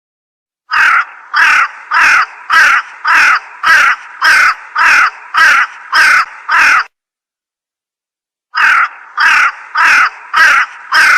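Crow cawing sound effect: a run of eleven caws at about two a second, then a break of dead silence and five more caws near the end.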